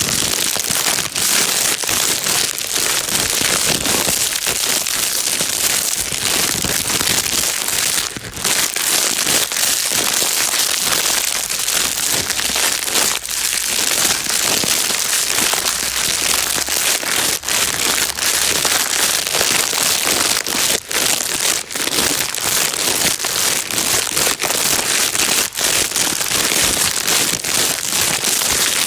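Plastic bag being crumpled and rustled continuously, a dense crinkling full of sharp crackles, used as white noise to calm a baby.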